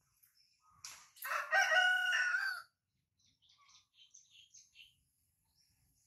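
A rooster crowing once, a single call about a second and a half long.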